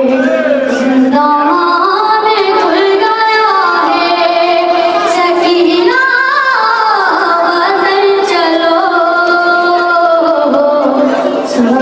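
A boy's high voice singing a noha, a Shia mourning lament, into a microphone in long held and sliding melodic lines.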